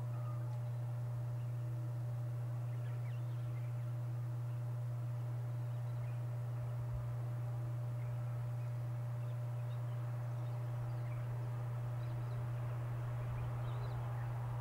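Low, steady drone of an approaching diesel-electric coal-train locomotive working under load, with faint bird chirps over it and the rumble building slightly near the end as the train nears.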